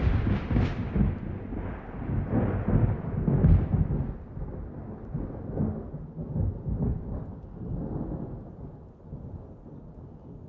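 Thunder rolling: loudest at the start, swelling again about three and a half seconds in, then slowly dying away.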